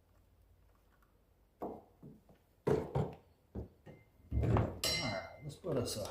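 Metal hand tools knocking and clinking in an engine bay during spark plug replacement, a run of sharp knocks with one short ringing clink, starting about one and a half seconds in.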